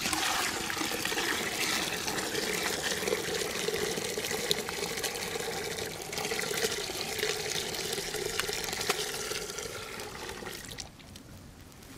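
Milk pouring in a steady stream from a stainless steel bucket into a large metal pot, filling it. The pour stops about a second before the end.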